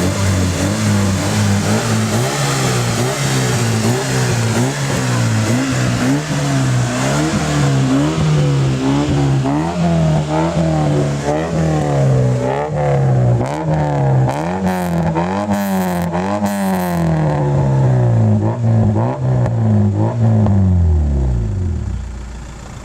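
Mitsubishi Lancer engine revved through an aftermarket cat-back exhaust in short repeated blips, rising and falling about once a second. Near the end the revs sink steadily back toward idle.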